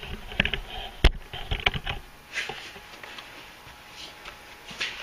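Handling clicks and knocks as the camera is picked up and set down, the sharpest knock about a second in, followed by a brief soft scrape.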